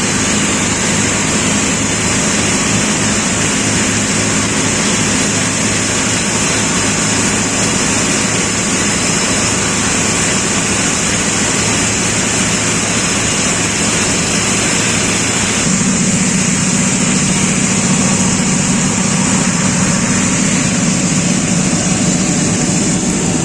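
Diesel engine running steadily during refuelling, with a steady hiss high up over it. About two-thirds of the way through its note changes and grows slightly louder.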